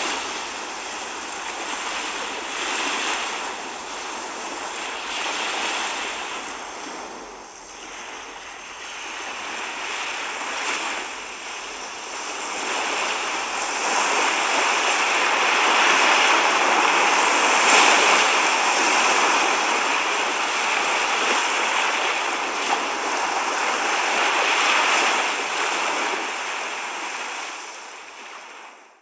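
Rough surf breaking and washing up a sandy beach: a steady rush of waves that grows louder about halfway through and fades out at the end.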